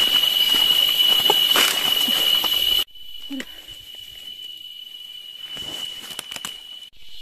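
Forest insects droning with one steady high-pitched tone over a hiss. It drops abruptly about three seconds in to a quieter stretch where the drone carries on faintly, with a few scattered rustles and clicks.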